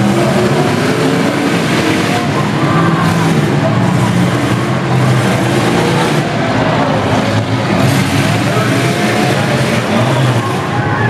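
Several demolition derby cars' engines running and revving together, the pitch rising and falling as the drivers accelerate and back off.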